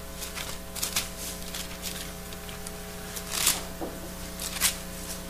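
Bible pages being turned: scattered short paper rustles and soft clicks, over a steady low electrical hum.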